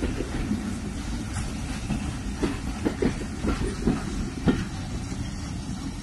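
Passenger coaches of a train rolling past close by: a steady rumble of wheels on rails, with a run of uneven clicks and knocks about halfway through as the wheels cross rail joints.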